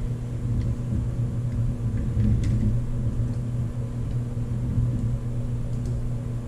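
A steady low machine-like hum with a rumble underneath, and a few faint clicks as the bike stand's clamp is adjusted on the seat post.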